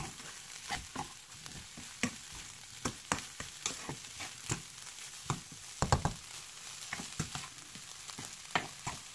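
Stir-frying rice in a pan: a metal spatula scrapes and taps against the pan in irregular strokes, about one or two a second, over a steady sizzle. The loudest strokes come about six seconds in.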